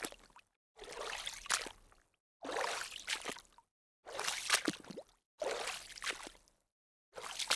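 Water splashing: about five separate splashes, each a second or so long with a sudden gap of silence between them.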